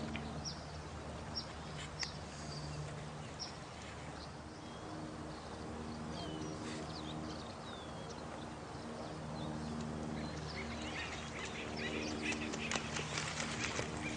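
Night nature soundscape: running water under short high chirps repeating about once a second, with low drawn-out animal calls coming and going. A flurry of clicks and chirps builds near the end.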